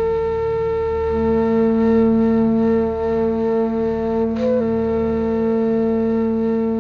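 Flute holding one long steady note, joined about a second in by a lower held tone, with a brief upward ornament a little past the middle.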